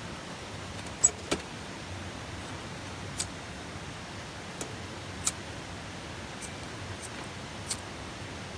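Chopsticks clicking and tapping against a metal mess tin while eating: about seven short, sharp clicks spread over several seconds, the loudest about a second in, over a steady background hiss.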